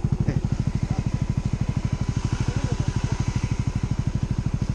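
Dirt bike's single-cylinder engine idling with an even, steady beat of about ten pulses a second.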